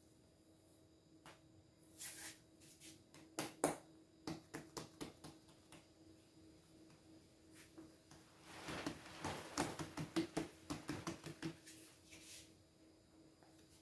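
Hands working ensaimada dough on a paper-lined table: scattered light taps and paper rustles, then a busy run of quick taps and rustles from about nine to twelve seconds in.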